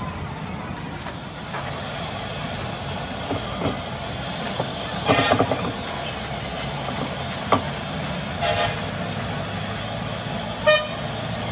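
Steady traffic noise with a low engine hum, broken by a few short vehicle-horn toots: the longest and loudest about five seconds in, others at about eight and a half seconds and near the end.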